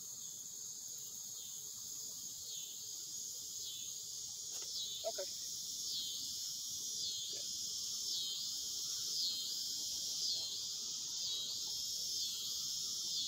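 Chorus of insects: a steady high-pitched drone that swells and fades in a regular beat about three times every two seconds, the beat growing clearer after the first couple of seconds.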